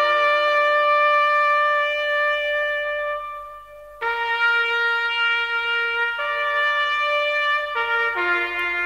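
Slow solo trumpet music of long held notes, one dying away about three seconds in before the next note enters a second later.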